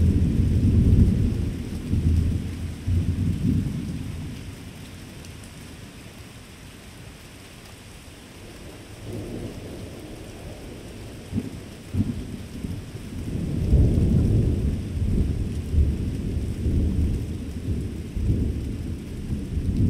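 Thunder rumbling low and heavy, dying away over the first few seconds, then a new peal building with two sharp cracks about eleven and twelve seconds in and rolling on loudly after that. Steady rain hiss underneath.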